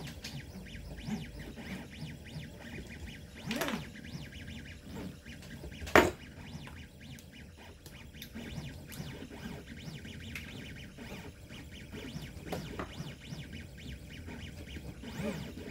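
Small 3D-printed plastic suspension parts and a screwdriver being handled on an RC truck chassis: scattered light clicks and plastic rattles, with one sharp click about six seconds in.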